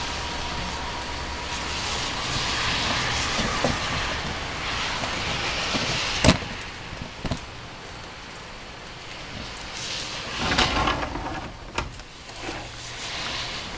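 Steady rain falling during a thunderstorm, with a sharp tap about six seconds in, a smaller one a second later, and a louder swell of noise with a low rumble about ten seconds in.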